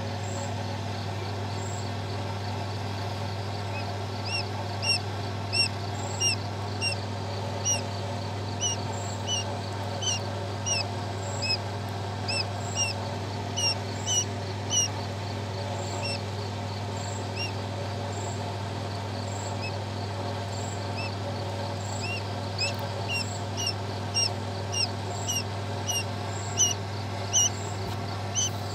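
Newly hatched Japanese quail chick peeping: short high cheeps about one or two a second, pausing for several seconds midway before starting again. A steady low hum runs underneath.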